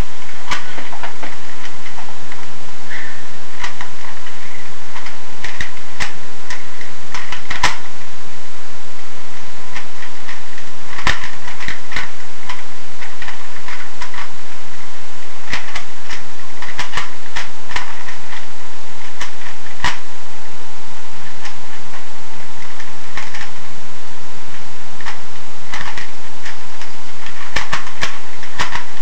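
A 3x3 Rubik's cube being turned quickly by hand, its plastic layers clicking and clacking in quick runs of turns with short pauses between.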